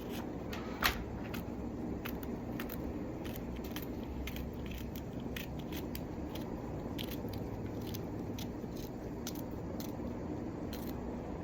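Food heating in a cooking pan, crackling with scattered irregular pops over a steady low hiss, one sharper pop about a second in.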